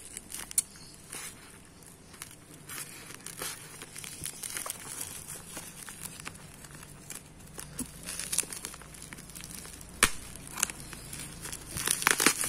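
Plastic bubble wrap crinkling and crackling as hands handle and unwrap a small package. Scattered sharp clicks run through it, the loudest about ten seconds in, and the crinkling grows denser near the end.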